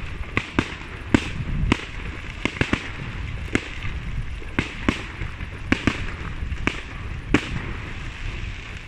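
Aerial fireworks display: sharp bangs of shells bursting at irregular intervals, about a dozen in nine seconds, over a steady low rumble.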